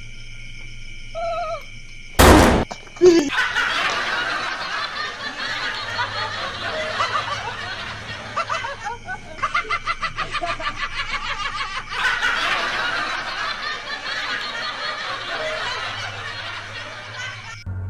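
A hooting call about a second in, then a sudden loud bang, followed by a long stretch of laughter with a run of quick, even ha-ha pulses in the middle.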